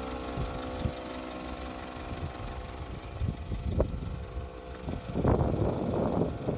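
A motor running steadily at an even pitch, with bursts of rough noise about five seconds in.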